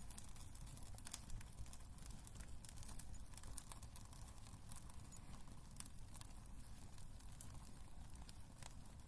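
Wood fire crackling in a fireplace: scattered sharp pops and crackles, irregular and fairly faint, over a low steady rumble of the burning fire.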